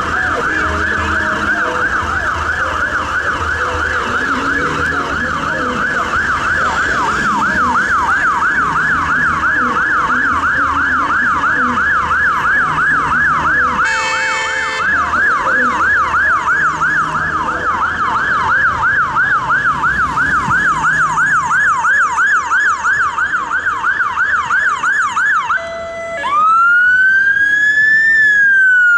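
Renault Master emergency ambulance's electronic siren sounding a fast up-and-down yelp, with a brief steady blare about halfway through. Near the end the siren pauses briefly and then switches to a slow rising and falling wail.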